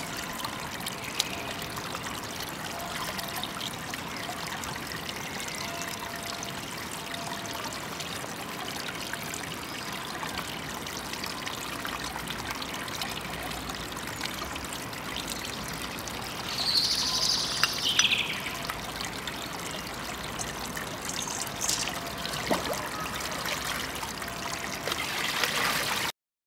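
Shallow stream water running over rocks, with splashing as a cloth is washed by hand in it. A short, louder sound comes about two-thirds of the way in, and near the end water is poured out of a metal bowl into the stream.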